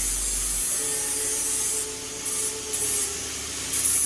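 Abrasive rubbing on a steel roll-cage tube as it is cleaned up for a fit: a steady scraping hiss for about two seconds, then three short strokes.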